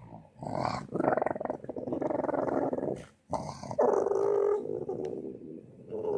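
Rough, animal-like growling in long stretches, with a short break about three seconds in; the growl turns more tonal and howl-like around four seconds in and again near the end.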